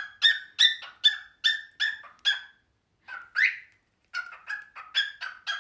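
Cockatiel chirping: a fast run of short, sharp chirps, about three a second, broken by a brief pause about halfway through. After the pause comes one longer call, and then another run of chirps.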